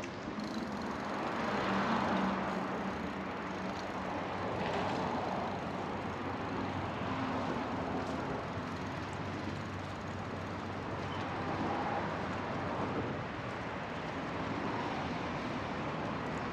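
Outdoor street ambience: a steady rush of traffic that swells and fades a few times.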